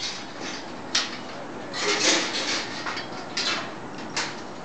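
Scraping and clinking of steel bridge members and hand tools being handled during assembly, with a sharp knock about a second in.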